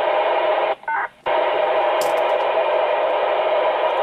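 Steady static hiss from a two-way radio's loudspeaker, the receiver's noise with the squelch open. It cuts out for about half a second near the start, then comes back.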